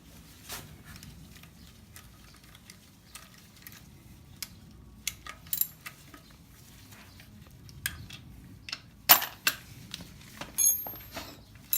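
Hand tools and bolts clinking and clicking against metal while a transmission case is being unbolted, with a loud metal clank about nine seconds in and a short metallic ring just after it.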